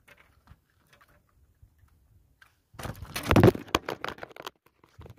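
Faint clicks, then about a second and a half of loud rustling and knocking from the camera being handled and swung around.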